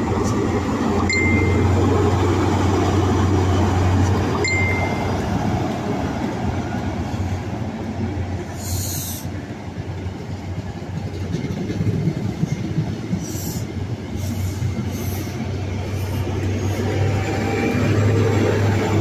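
A GWR InterCity 125 High Speed Train with Class 43 diesel power cars pulling out of the station and passing close by. The engines give a steady low drone over the rumble of the coaches on the track, with two brief high squeals about one and four seconds in. The sound swells again near the end as the rear power car goes past.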